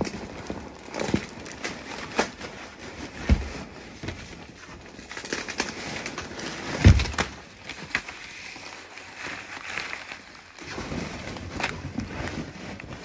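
Bubble wrap and plastic packaging rustling and crinkling as wrapped crockery is handled, with scattered sharp clicks and two heavier thumps about three and seven seconds in.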